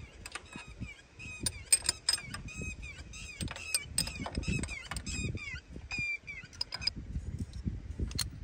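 A bird calling over and over in short, curving notes, mixed with sharp metallic clicks of a spanner working on the bolts of a tractor's diesel fuel filter housing.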